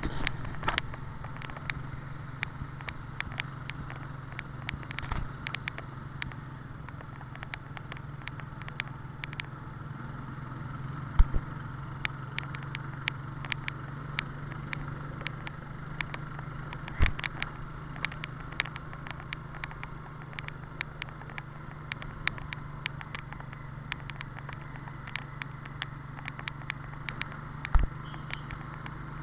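Inside a moving vehicle: a steady engine and road hum with frequent sharp clicks and knocks throughout, the loudest knocks about 11 s and 17 s in and near the end.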